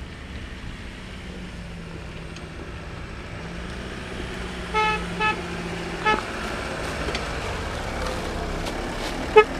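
Jeep Wrangler driving up a muddy track toward the microphone, its engine growing steadily louder as it approaches, with a few short horn toots about five seconds in.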